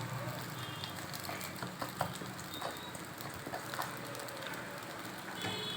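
Frying hiss from a kadai of egg and onion, with a few scattered taps and scrapes of a spatula as cooked rice is added and stirred in.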